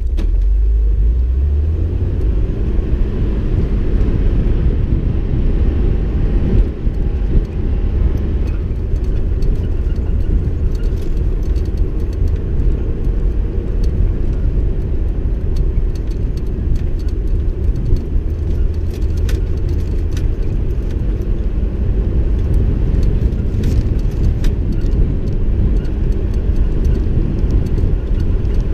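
A vehicle driving over a rough dirt track: a steady low rumble of engine and tyres, with scattered small knocks and rattles.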